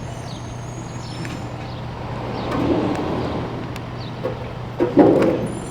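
Street traffic noise with a steady low hum, faint short chirps, and a louder burst of noise about five seconds in.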